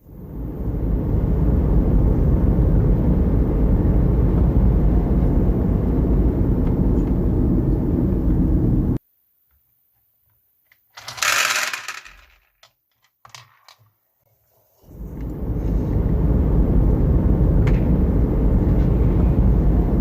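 Marbles rolling down a wooden marble run, a steady low rumble that cuts off abruptly about nine seconds in. After a short hissing rush and a few light clicks, the rumble starts again near the end.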